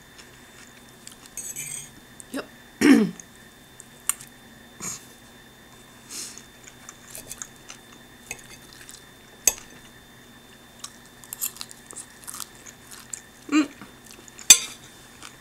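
Close-up eating sounds: chewing a kale salad, with sharp clicks of a metal fork against the plate scattered throughout. Two short hummed vocal sounds, about three seconds in and near the end.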